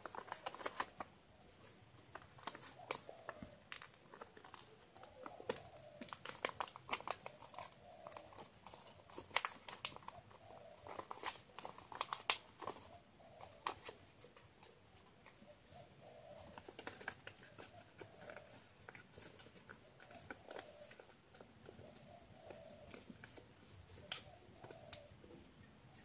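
A sheet of origami paper being folded and creased by hand, crinkling and crackling in uneven clusters of sharp crackles. It is busiest in the first half and thins to a few crackles later on.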